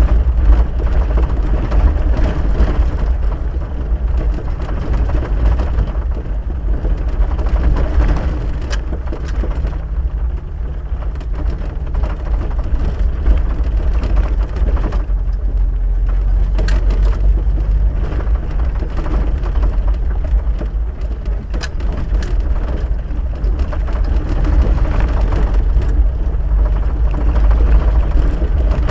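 Steady low rumble of a vehicle driving on a gravel dirt road, heard inside the cabin: engine and tyres on loose gravel, with a few sharp clicks and rattles.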